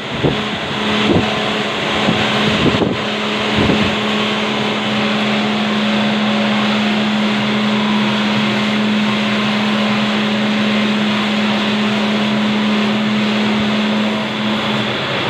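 Horizontal band saw running with a steady machine noise and hum, with a few knocks in the first few seconds; the hum stops near the end.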